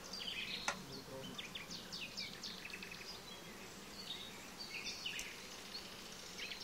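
Honeybees humming around an open hive, with small birds chirping in short bursts throughout and a sharp click under a second in.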